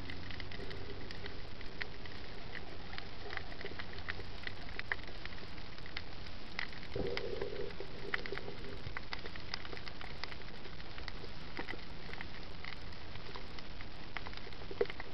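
Underwater ambience picked up by a submerged camera: a steady hiss with irregular, scattered crackling clicks. A short low hum sounds about seven seconds in.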